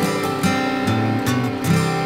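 Background music led by a strummed acoustic guitar, with chords changing a couple of times.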